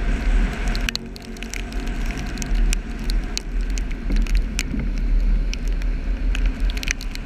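Car driving on a rain-soaked road: a steady low rumble of the car and wet tyres, with irregular sharp ticks of raindrops striking.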